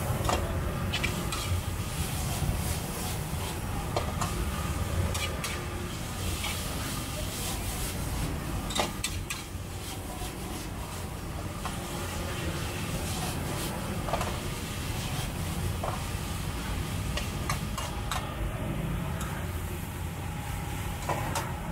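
Busy street-market ambience: a steady low rumble of traffic with scattered knocks and clicks and faint voices.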